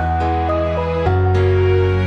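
Soft royalty-free background music: a gentle melody of held notes over a sustained bass line that shifts about a second in.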